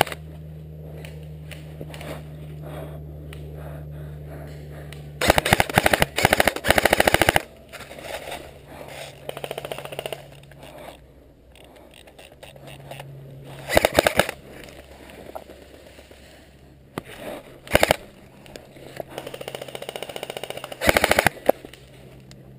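Airsoft guns firing in rapid full-auto bursts of sharp clicking pops: a long burst of about two seconds five seconds in, then shorter bursts near the middle and toward the end, with scattered single shots between.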